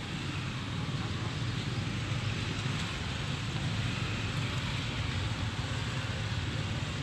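Steady low rumble with an even hiss, no distinct sounds standing out: outdoor background noise.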